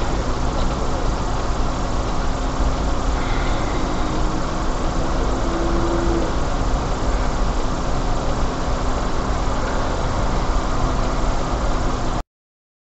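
Steady low rumble of a car's engine idling and surrounding traffic, heard through a dashcam inside a car stopped in traffic, with a constant low hum. The sound cuts off abruptly near the end.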